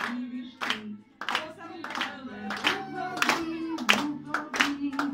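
Party guests clapping in time, about one clap every two-thirds of a second, to a birthday song whose held melody notes run underneath.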